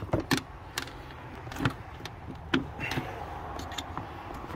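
Irregular plastic clicks and knocks as the K&N air filter housing is pressed and worked into its tabs by hand, over a steady low background rumble.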